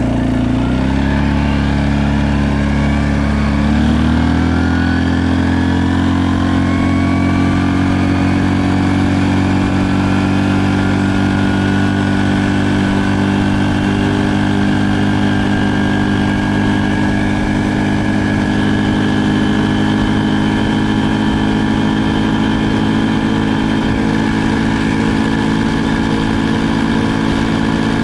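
Stels Leopard ATV engine and CVT under way: the engine note rises over the first few seconds as it picks up speed, then holds a steady pitch while cruising.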